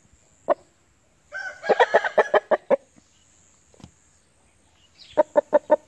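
Asil rooster calling up close: a short crow about a second in, then a quick run of about six clucks near the end.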